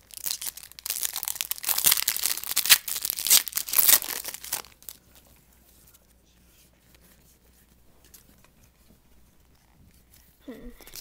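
A trading-card pack wrapper being torn open and crinkled in the hands, a dense crackling that stops about five seconds in.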